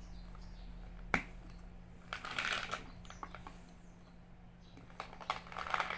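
Plastic pill bottle being opened: a sharp click of the cap about a second in, then capsules rattling in the bottle twice.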